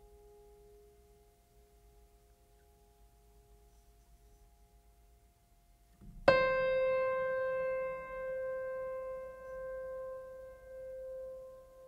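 A metal bell is struck once about six seconds in and rings on, fading slowly with a wavering beat. Before the strike the faint ring of an earlier strike is still dying away.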